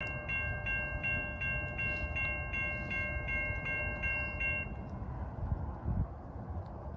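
Railroad grade-crossing warning bell ringing rapidly, about three dings a second, with short clean electronic tones, stopping about four and a half seconds in, over a steady low rumble.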